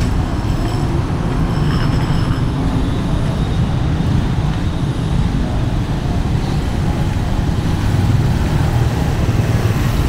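Street traffic: cars and motorcycles on the road beside the pavement, heard as a loud, steady low rumble.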